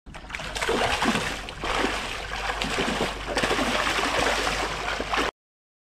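Salmon splashing and thrashing at the water's surface, a continuous spattering of water that cuts off suddenly about five seconds in.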